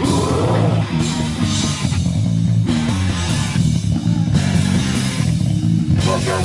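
Live metal band playing loud: distorted electric guitar and bass riffing heavily, with drums whose bright cymbal crashes drop in and out every second or so.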